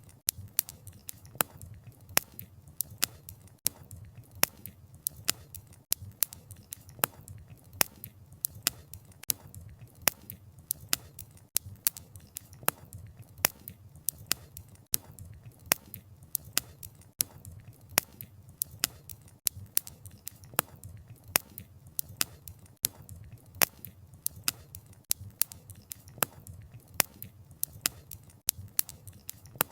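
Wood fire crackling: sharp, irregular pops and snaps from the burning wood, a few each second, over a low, steady rumble of the flames.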